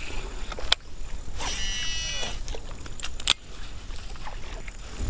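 Open-air outdoor ambience with a steady low rumble, a couple of sharp clicks, and a brief high warbling sound about a second and a half in.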